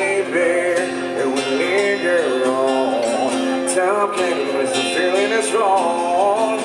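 A man singing a pop love song into a microphone, accompanied by acoustic guitar, amplified through a PA.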